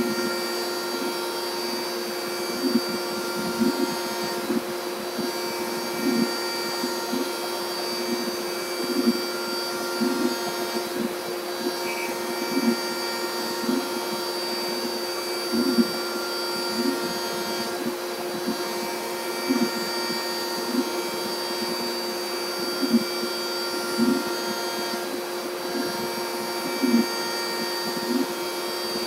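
CAMaster Stinger I CNC router cutting plastic with a 3/8-inch end mill while its dust collector runs: a steady whine and rush of air, with a short swelling sound recurring roughly once a second.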